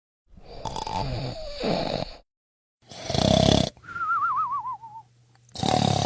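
Exaggerated comic snoring: loud rasping snorts on the in-breath, and after the first one a warbling whistle on the out-breath that slides down in pitch.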